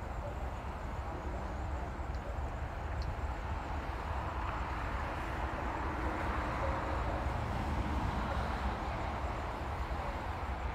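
Wind buffeting the microphone in a low, fluttering rumble, over the steady hiss of street traffic that swells for a few seconds midway.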